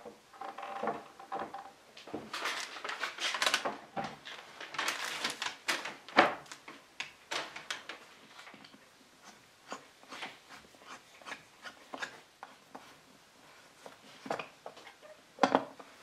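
Handling noise from a wooden table-top frame being shifted about on a kraft-paper-covered workbench: paper rustling and wood scraping, with scattered clicks and knocks. The sharpest knock comes about six seconds in and another near the end.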